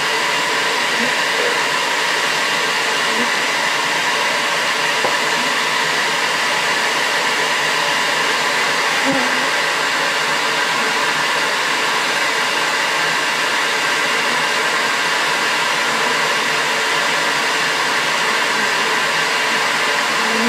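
Bee vacuum motor running with a steady, unbroken whir.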